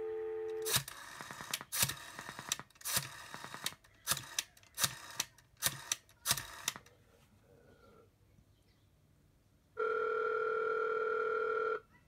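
A rotary telephone's dial tone stops as dialing begins. Then come groups of rotary dial pulse clicks, one group for each of the seven digits of 555-1212. After a short pause, a steady two-tone ringback tone sounds for about two seconds, the signal that the correct number's call is going through.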